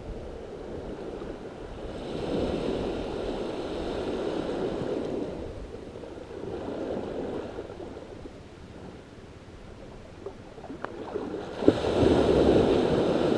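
Small waves washing up onto a sandy beach and drawing back, the sound swelling and fading every few seconds, with a louder wash setting in near the end. A few faint clicks come shortly before it.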